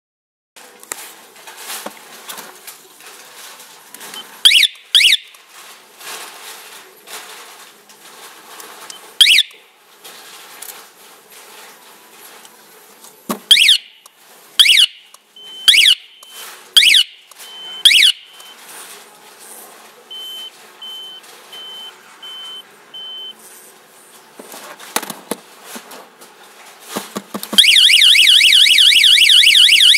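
Two-way motorcycle anti-theft alarm worked from its remote fob: the siren speaker gives short single chirps several times as buttons are pressed, with handling and button clicks between, then a run of six short even beeps. Near the end the full alarm goes off, a loud, fast warbling siren.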